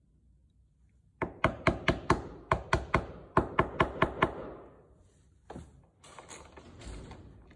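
A quick series of about a dozen sharp taps, roughly four a second, lasting about three seconds, followed by softer handling noises.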